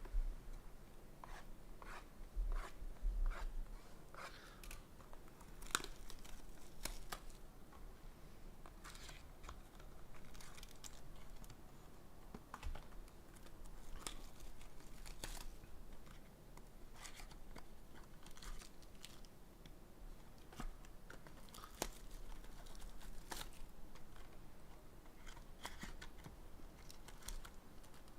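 Plastic wrapping on trading card boxes being torn and crinkled, with scattered small clicks and taps of handling.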